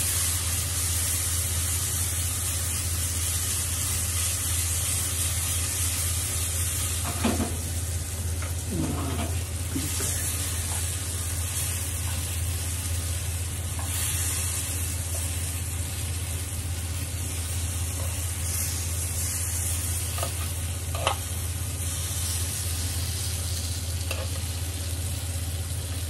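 Persimmon slices sizzling steadily in olive oil in a small frying pan, over a low steady hum. A few brief scrapes and taps come from a knife turning the slices in the pan.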